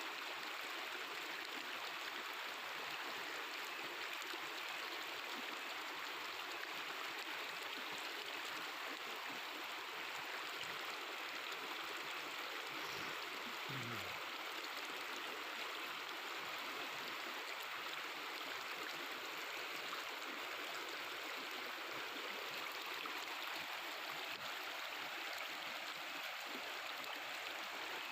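Mountain river water flowing and babbling over rocks in a steady rush.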